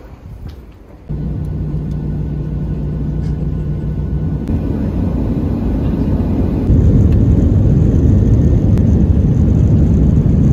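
Jet airliner's engines heard from inside the cabin during the takeoff roll. About a second in, a loud rumble with a steady low hum starts, grows louder, and steps up again past the middle as the plane lifts off.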